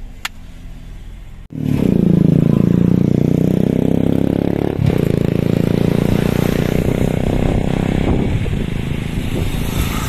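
Motorcycle engine running close alongside, coming in loud suddenly about a second and a half in. Its pitch falls and then climbs again, over a steady rushing noise.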